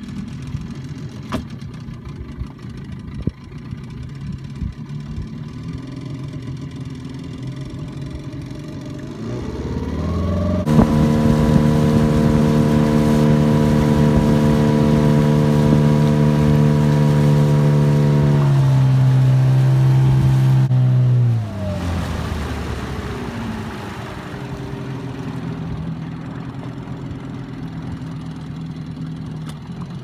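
Small outboard motor on an inflatable boat running at low throttle, then opened up about ten seconds in and running steadily at high speed. It is throttled back from about eighteen seconds, drops off sharply just after twenty-one seconds and settles into a lower, steady run.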